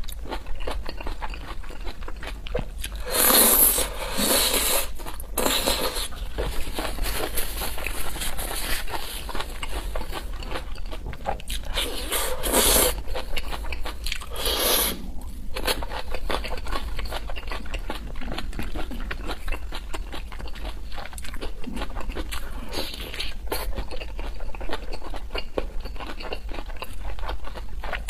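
Close-miked eating of fried skewers: wet, crackly chewing throughout, with louder crunching bites about three seconds in, again around twelve seconds and near fifteen seconds. A steady low hum runs underneath.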